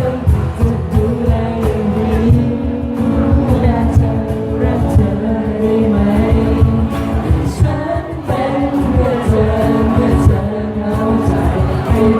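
Thai pop song playing: a melody over a full band backing with a steady drum beat.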